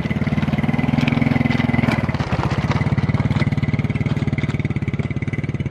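Diesel-electric locomotive approaching with its engine running loud and steady in a fast, even pulse, with a couple of sharp metallic clicks in the first two seconds.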